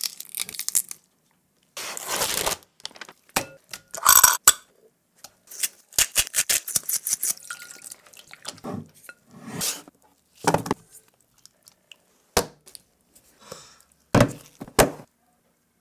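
Close-up kitchen handling sounds: fine crackling of eggshell being peeled off boiled eggs, then a spoon clinking and scraping in a glass bowl as kimchi is stirred with its sauce. Near the end, two low thumps as a plastic food container is handled on a wooden table.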